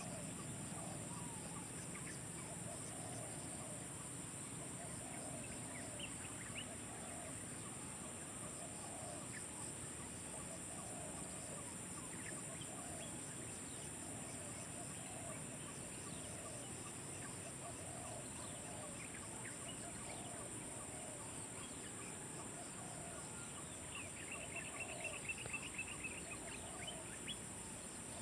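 Outdoor animal sounds: a steady high insect drone under a low call that repeats about once a second, with scattered chirps and a short rapid trill near the end.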